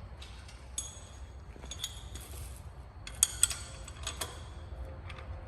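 Metal clinks and taps as a steel bolt is pushed through a hinge bracket and the dock frame's pre-drilled holes, each with a short high ring, the two loudest close together about three seconds in.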